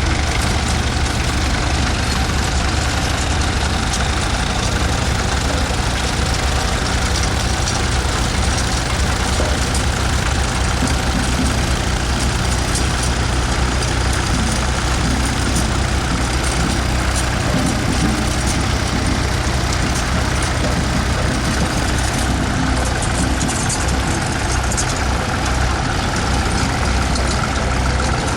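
Vintage tractor engine idling steadily.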